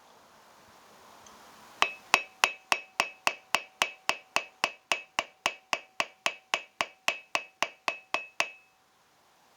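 Hand hammer striking a silver bar on an anvil in a quick, even rhythm, about three and a half blows a second, each blow ringing; the bar is being drawn out cold. The blows begin about two seconds in and stop shortly before the end.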